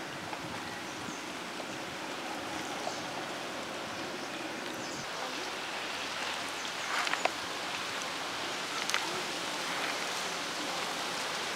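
A hand mixing and squeezing thick, wet prawn vada batter in a steel bowl: a steady squelching hiss broken by a few light clicks, the clearest about seven and nine seconds in.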